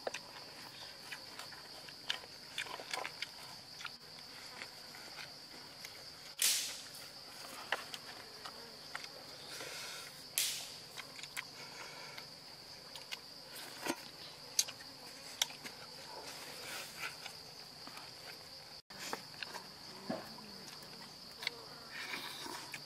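Insects buzzing in one steady high-pitched drone, with scattered short crunches and clicks of fried eel wrapped in lettuce being handled and eaten.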